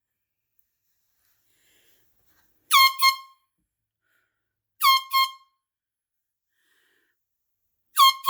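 A horn blown in pairs of short, loud, high-pitched honks: three double honks about two seconds apart.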